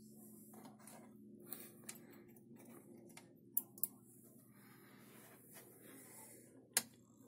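Faint steady hum of a Creality Ender 3 3D printer's cooling fans, with two quick sharp clicks about halfway in and one louder click near the end.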